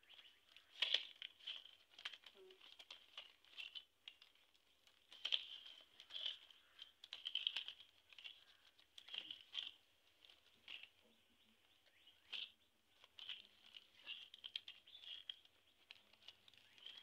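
Dry coconut-frond leaflets rustling and crackling in irregular, faint snaps as they are folded by hand and tucked into the weave of a frond mat.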